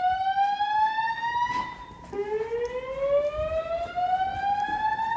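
System Sensor SpectrAlert Classic fire alarm speakers sounding the slow whoop evacuation tone of a voice evacuation system. Each rising sweep climbs for about three and a half seconds: one tops out about a second and a half in and holds briefly, then a fresh sweep starts about two seconds in and climbs again.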